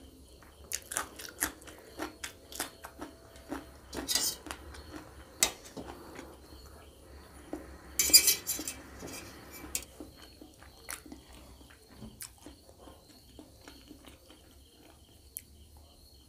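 A metal fork clinking, tapping and scraping on a steel plate while the last noodles are gathered up. There are many quick taps in the first half, the loudest scrape about eight seconds in, and sparser ticks after that.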